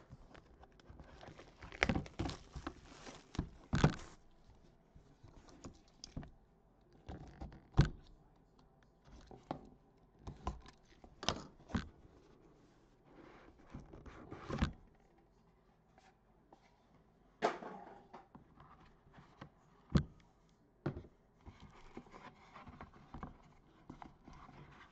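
A cardboard trading-card box being unwrapped and opened by hand: irregular knocks and taps against the box, with short stretches of rustling and tearing of its wrapping.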